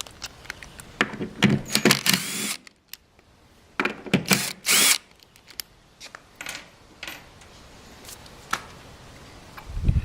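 Power drill run in two short bursts, about a second in and about four seconds in, as the drill bit is being swapped. Light clicks and knocks of handling follow.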